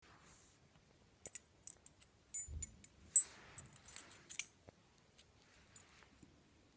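Metal tag on a Jack Russell terrier's collar clicking and jingling as a baby's fingers handle it: a string of small, irregular metallic clicks, with a soft low thump about two and a half seconds in.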